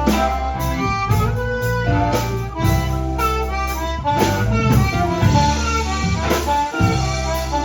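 Blues band playing an instrumental break: a bending lead melody line over a steady bass line and drums.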